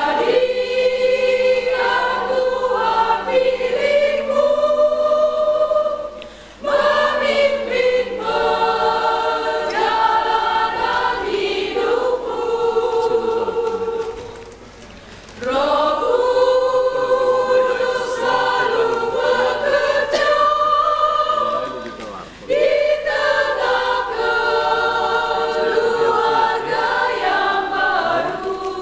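Women's church choir singing together in long sustained phrases, with brief pauses for breath between them, about every seven seconds.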